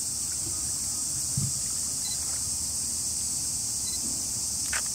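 Steady high-pitched chorus of insects over a low wind rumble, with a single soft thump about a second and a half in.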